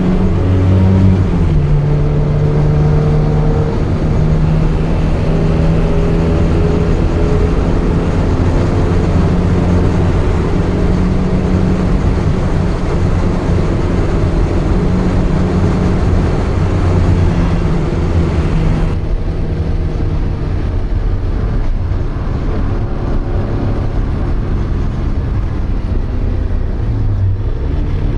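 Porsche 924's 2.0-litre four-cylinder engine running hard at track speed, heard from inside the car, its note stepping down in pitch about a second and a half in. From about two-thirds of the way through it runs softer, then rises again near the end.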